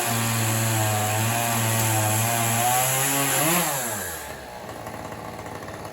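Chainsaw engine running at steady high revs, then the throttle is let off about three and a half seconds in and the engine note falls away to a quieter level.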